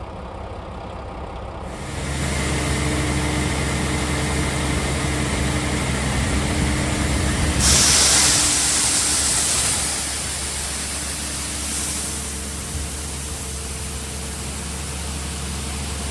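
Heavy farm machinery engine running steadily, stepping up in level about two seconds in. A loud rushing hiss comes in near the middle and lasts about two seconds.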